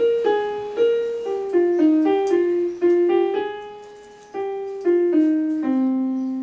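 Electronic keyboard playing a simple melody one note at a time with the right hand, no chords, picked out by a learner. Each note starts sharply and fades; the tune steps mostly downward, pauses for about a second around the middle, and ends on a long low note.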